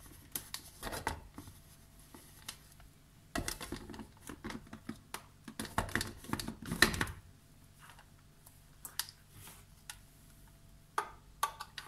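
Plastic clicks and knocks from a small electric food chopper as its motor head is fitted onto the lid, in three short clusters a few seconds apart, followed by a few single clicks.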